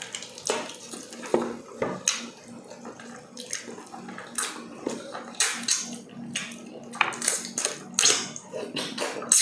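Close-miked eating sounds: wet chewing and lip smacking as saucy stewed meat and rice are eaten by hand, with irregular sharp smacks and clicks a few times a second.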